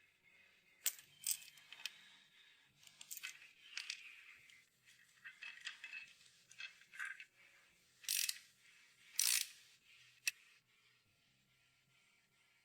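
Small metal objects clinking and scraping as they are handled: an irregular run of sharp clinks, the loudest about eight and nine seconds in, with scraping between them.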